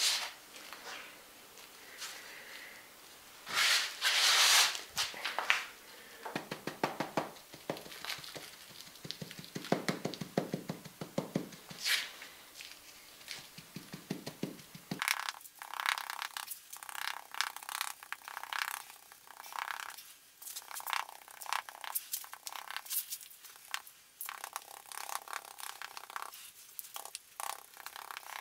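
Damp clay moulding mix being scooped and packed into a wooden mould frame, with gritty scraping and rustling, then rammed down with the end of a wooden stick in many short, irregular dull knocks from about halfway on.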